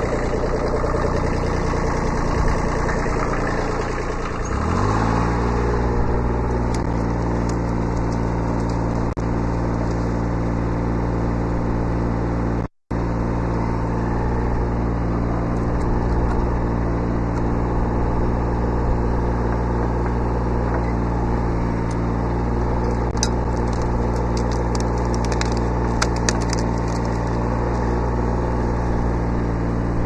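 Kubota B7100 subcompact tractor's three-cylinder diesel engine running while the backhoe is worked; its note dips and wavers in the first few seconds, then settles to a steady speed. A few faint clicks come near the end.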